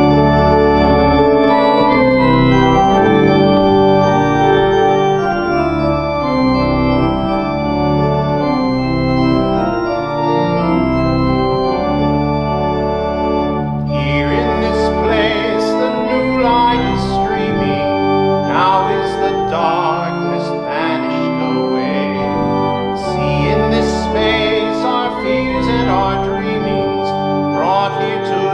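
Church organ playing a hymn in held chords. About halfway through, a singing voice with vibrato joins in over the organ.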